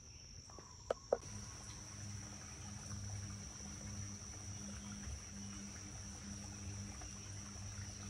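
Insects in the rainforest trilling in one steady, unbroken high tone. Two sharp clicks come about a second in, and a low steady hum comes in just after them.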